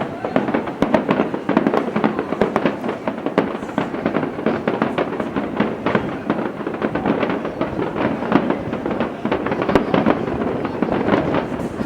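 Fireworks display finale: a dense, continuous barrage of shell bursts and crackling, many reports a second with no pause.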